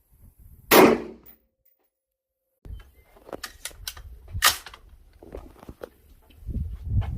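Two gunshots, one about a second in and another about four and a half seconds in, with a few small clicks and knocks between them.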